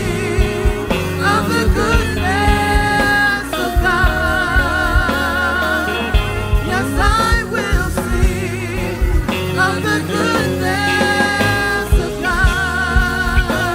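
Live worship band music with singing: held, wavering vocal notes over bass and drums.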